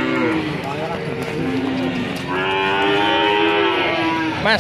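Several cattle mooing in long calls that overlap. One long, deep moo runs from about halfway through to near the end.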